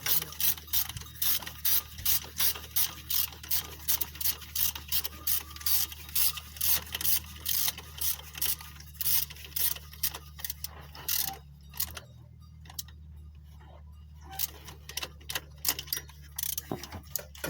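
Ratchet wrench clicking in quick, even strokes, about two a second, as a glow plug is screwed into a diesel engine. The clicking eases off after about ten seconds and comes back briefly near the end.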